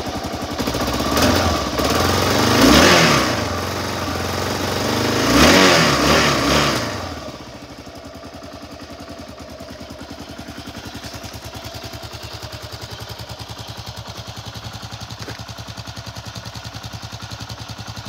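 2018 Kawasaki KLR650's single-cylinder engine idling in neutral, revved up twice (about a second in and again around five seconds), then dropping back to a steady, quieter idle.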